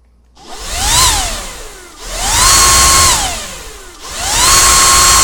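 An electric air blower switched on three times in a row, its motor whine rising in pitch as it spins up, holding briefly, then falling away with a rush of air. The first run is short; the second and third hold full speed for about a second each. The air is aimed at a gyroscope fidget spinner to spin it.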